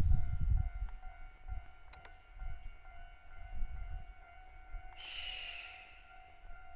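Japanese railway level-crossing warning bell sounding steadily, with a low rumble in the first second and a brief hiss about five seconds in.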